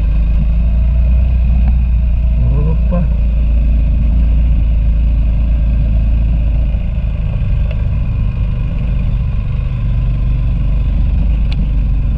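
Motorcycle running steadily on a dirt road, with a heavy low rumble throughout. A short spoken fragment comes about three seconds in.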